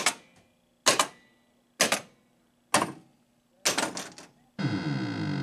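Williams Firepower pinball machine's solenoid coils firing one after another in solenoid test: five sharp clacks about a second apart, the last one doubled. Near the end a steady electronic tone with many overtones starts.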